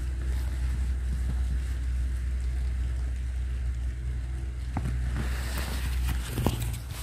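A steady low rumble. About five seconds in, a rustling hiss and a few footsteps on grass join it, and the rumble drops away just before the end.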